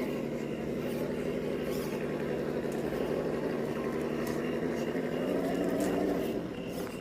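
Electric motor and geared drivetrain of an RC scale rock crawler whining steadily as it crawls over rocks, with scattered light clicks. The whine swells about six seconds in, then falls away.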